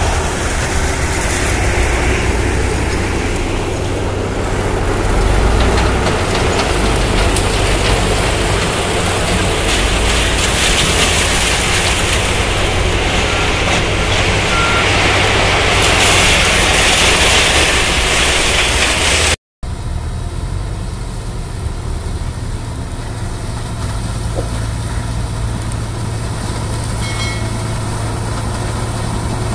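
Diesel tractor engine running under load as a New Holland 3600 tractor pulls a sugarcane trailer across the field. After an abrupt cut about two-thirds through, a steadier, lower engine note follows: the Case IH Austoft 4000 sugarcane harvester and the tractor working side by side.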